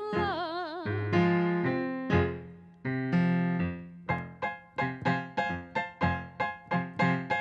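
A singer's held note with vibrato ends about a second in. A keyboard plays on alone in the tango: first sustained chords, then short repeated chords at a steady pulse of about three a second.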